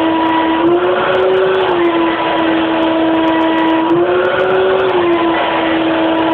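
Shop vac motor running steadily, driving a homemade reciprocating water-displacement gravity engine. Its whine steps up and down in pitch every few seconds as the engine cycles its tank between filling and venting air.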